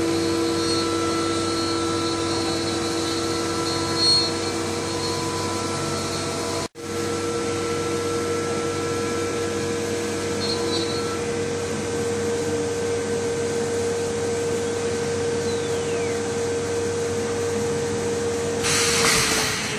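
Castaly PRO 510 b CNC router's spindle running at steady speed, a steady motor whine with overtones. The sound cuts out for an instant about seven seconds in. Near the end there is a short burst of hiss, and the whine's pitch starts to drop.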